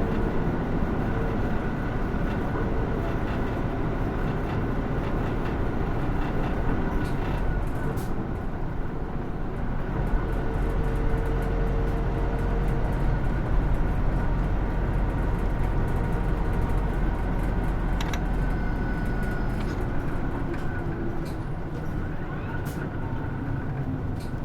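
Inside a Hino Rainbow II medium-size diesel route bus under way: steady engine drone and road rumble, with occasional small clicks and rattles. The level eases off slightly near the end.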